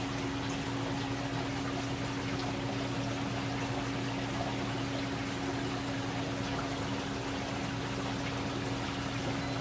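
Saltwater aquarium pumps running: a steady low hum under a continuous wash of moving water.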